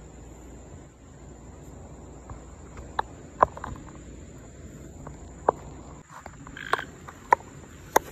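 Crickets chirring as one steady high tone, with several short, sharp clicks from about three seconds in and a brief rasping burst near the end.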